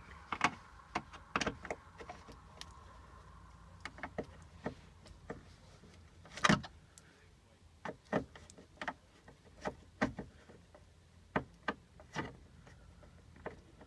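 Screwdriver work on screws in a plastic dashboard panel: irregular sharp clicks and taps, one louder knock about six and a half seconds in, over a faint low hum.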